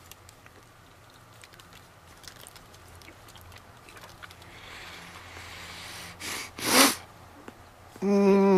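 A man with a mouthful of fermented herring: faint chewing and mouth noises and heavy breathing, then two sharp blasts of breath about six and a half seconds in. Near the end comes a loud, held, closed-mouth groan of disgust.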